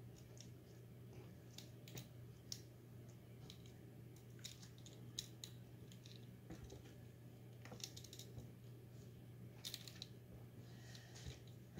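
Faint, scattered clicks and soft taps of hands moving wet dyed wool roving about in a metal baking pan, over a faint steady low hum.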